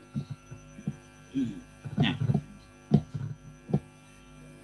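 Short, broken fragments of a voice over a video-call audio line, with a few brief clicks, over a steady electrical hum.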